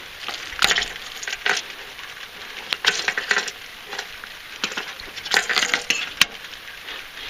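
Steady hiss of rain with irregular sharp clicks and crackles from handling up close, as a fishing lure with a broken treble hook is handled.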